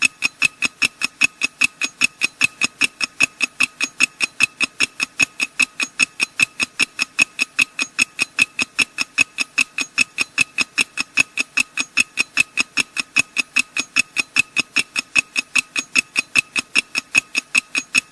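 Ticking clock sound effect: regular, evenly spaced ticks at about four a second, keeping a steady pace, used as a countdown timer for thinking time.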